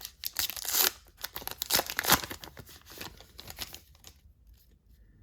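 Plastic-foil trading card pack wrapper being torn open and crinkled in the hands, crackling in quick bursts that die away about four seconds in.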